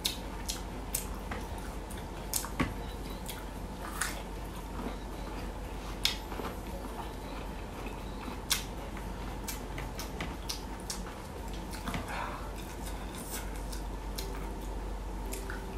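A person chewing boiled bamboo shoot close to the microphone: irregular soft mouth clicks every second or so over a steady low hum.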